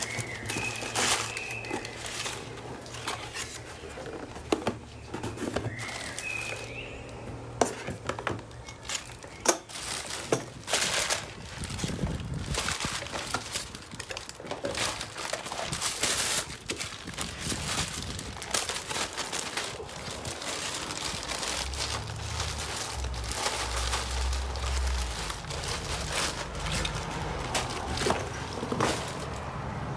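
Packaging being handled: crumpled kraft packing paper, clear plastic wrap and a plastic poly mailer crinkling and rustling, with cardboard box flaps being moved.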